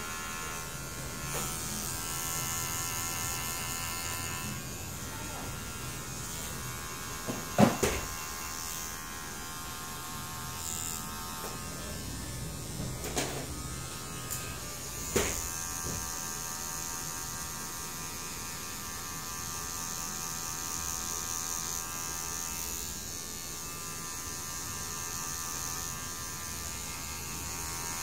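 Electric hair clippers running steadily with a buzz while cutting hair. A few sharp knocks cut through it, the loudest a pair about eight seconds in, with more around 13 and 15 seconds.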